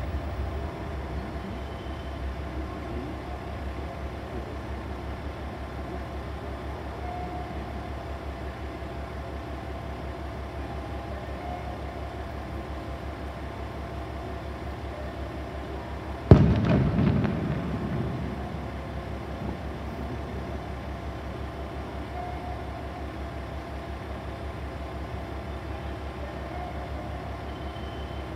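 KiHa 40 diesel railcar's engine idling with a steady low throb. About sixteen seconds in, a single sudden loud burst cuts in and dies away over a couple of seconds.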